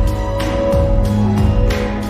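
Cantopop song playing in an instrumental passage without singing: sustained chords over a steady drum beat, processed to sound as if heard in a large empty room.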